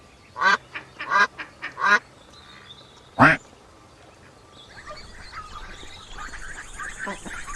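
Duck quacking: a quick run of quacks in the first two seconds and one loud quack at about three seconds in. From about five seconds in, a denser background of softer, shorter sounds rises.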